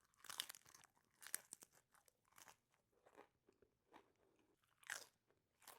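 Faint, close-up biting and chewing of a crunchy deep-fried taco shell: irregular crisp crunches spaced about a second apart.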